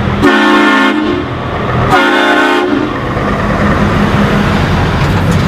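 Heavy vehicle horn honking twice, each blast about half a second, over a steady engine rumble, like a truck sound effect.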